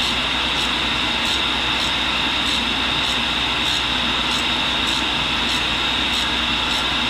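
1942 Cincinnati tool and cutter grinder running steadily, its wheel grinding the point of a carbide drill bit, with a high steady hiss and a faint regular ticking a little under twice a second.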